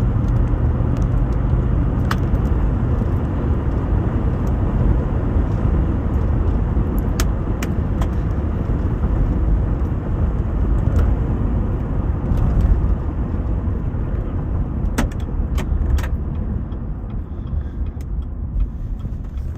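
A car driving, with a steady low road and wind rumble and scattered sharp clicks. The sound cuts off abruptly at the end.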